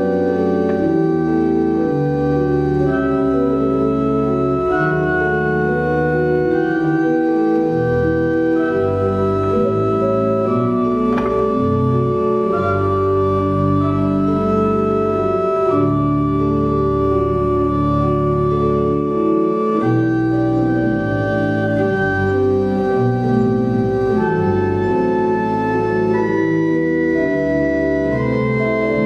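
Organ music: slow, sustained chords held and moving to new chords every second or two.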